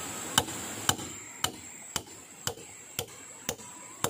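A hand tool striking wood in a steady rhythm, seven sharp knocks about two a second, each a little weaker than the last.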